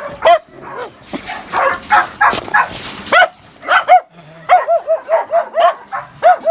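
English springer spaniel puppies yipping and whimpering in short, high-pitched calls, with a quick run of repeated yips in the second half.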